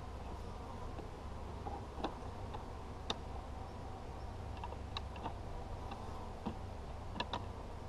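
Light, irregular wooden clicks and taps as wooden hive parts are handled and set on a beehive box, with the sharpest clicks about two, three, five and seven seconds in.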